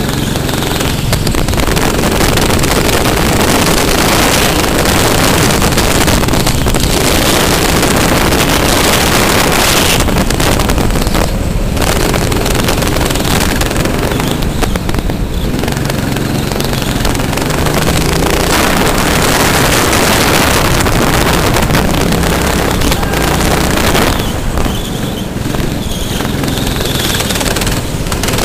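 Racing go-kart's small petrol engine running hard, its note rising and falling, under heavy wind noise on the microphone.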